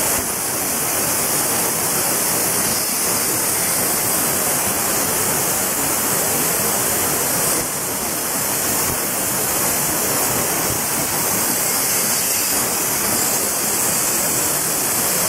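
Plasma arc from a 100 A CNC plasma cutter's torch cutting sheet metal: a loud, steady hiss, dipping for a moment about eight seconds in.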